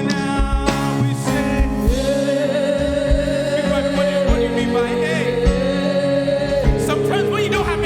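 Gospel praise-and-worship music: a voice holds long sustained notes with vibrato over a live band with a steady beat.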